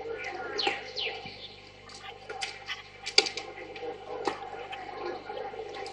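Young kittens mewing a few times in the first second, with high falling cries, then faint clicks and rustling as the litter and mother cat shift on a blanket; a click about three seconds in is the loudest sound.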